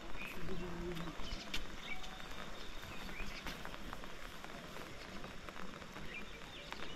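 Footsteps on a dirt trail, irregular short steps, with brief high chirps of small birds and a short low hum in the first second.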